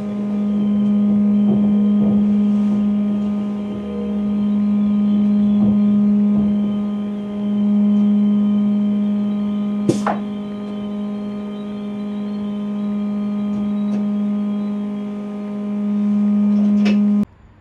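Steady electrical hum in the cab of a Class 350 Desiro electric multiple unit, one low note that swells and eases every few seconds, with a few light clicks and one sharp click about ten seconds in. It cuts off suddenly near the end.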